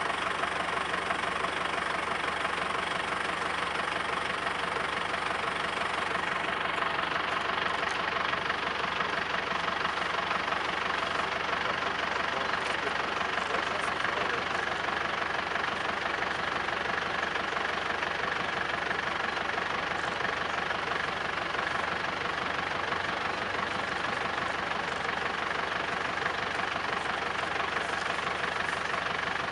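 Tow truck's engine running steadily at idle, an even drone with no change in pace.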